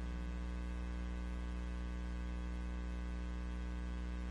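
Steady electrical mains hum with a buzz of overtones and faint hiss, carried by the sound system; nothing else sounds.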